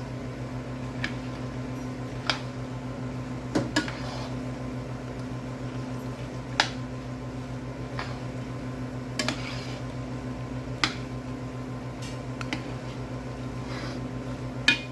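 Steady low hum of a running kitchen appliance, with a few light clicks and taps of kitchen utensils every second or two.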